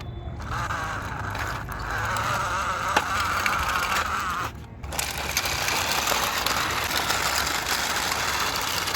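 Toy tractor, JCB and dump truck moving along, a steady mechanical whirring and rattling. It breaks off briefly about four and a half seconds in, then carries on.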